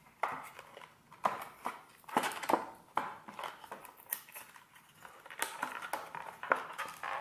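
Hands wrestling with a glued, tightly sealed phone-case package: irregular clicks, taps and short rustles of the packaging being pried and pulled at.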